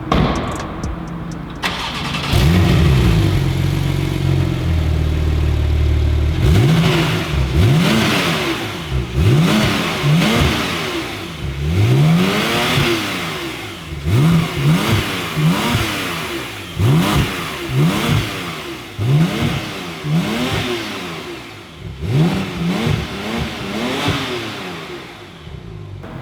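Porsche 991.2 911 Turbo S's twin-turbo flat-six on its stock exhaust, starting up about two seconds in with a flare and settling to a steady idle. From about six seconds on it is blipped repeatedly, roughly a dozen quick revs rising and falling in pitch. This is the factory exhaust sound, which the owner finds good but not mean enough.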